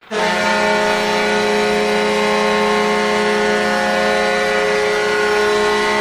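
Ice hockey goal horn blowing one long, steady blast, starting abruptly about a tenth of a second in.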